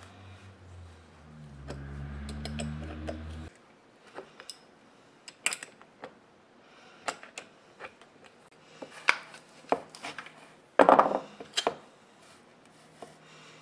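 Metal clicks and clinks of an adjustable wrench working the nuts on an old electric drill's gear-end plate, with a louder scraping clatter about eleven seconds in as the grimy end plate and armature are worked loose. A low hum sounds at first and stops abruptly about three and a half seconds in.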